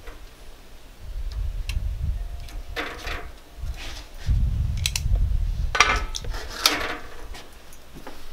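Excess screen mesh being worked off the edge of an aluminum window-screen frame: a few short scraping, rustling strokes with light clicks, over a low rumble.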